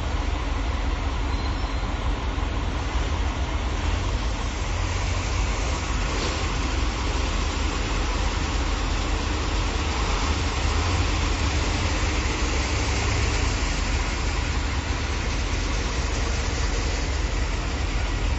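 Steady low rumble of a moving vehicle's engine and road noise, with an even hiss over it.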